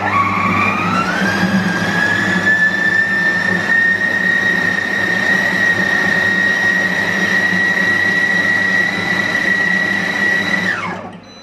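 Compact Cook Elite kitchen robot's blender motor running a ten-second mix of soup: a loud motor whine that rises in pitch over the first second or so, holds steady, then winds down and stops near the end.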